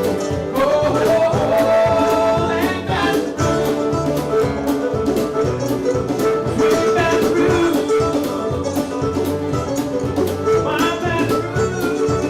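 Bluegrass band music: plucked banjo and guitar over a steady beat, with a singing voice.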